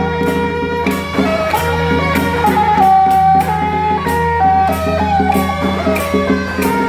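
Traditional Taiwanese temple procession band playing: a suona carries a loud, stepping melody over steady drum and gong beats.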